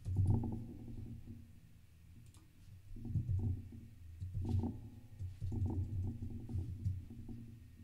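Irregular keystrokes and clicks on a computer keyboard, in short spells, over a low rumbling sound.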